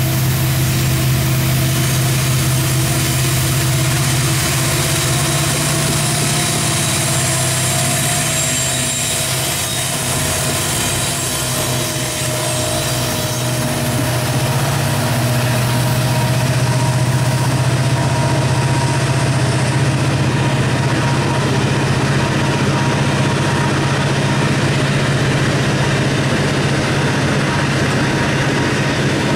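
A diesel freight locomotive passes with a steady low engine drone. A long train of ore cars then rolls by, adding a constant rumble and hiss of steel wheels on rail.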